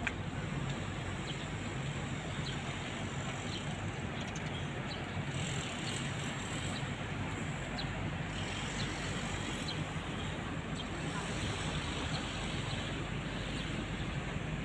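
Steady outdoor ambience: wind noise on the microphone over a low, steady engine hum from distant traffic.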